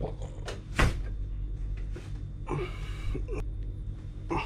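Rustling and handling noises from someone stirring under a blanket, with a sharp knock about a second in, over a steady low hum.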